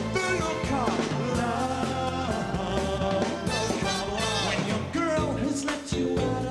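Live pop band performing a song: a male lead vocal over drums, bass, keyboards and a horn section of trumpet and saxophone.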